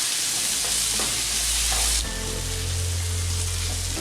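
Chopped onions, green chillies and tomato frying in hot oil in a pan, sizzling steadily as they are stirred; the hiss of the sizzle drops off abruptly about halfway through.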